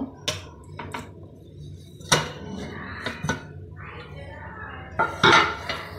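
Aluminium pressure cooker lid being twisted free and lifted off the pot: a series of metal knocks and scrapes, with the loudest clatter about two seconds in and again near the end.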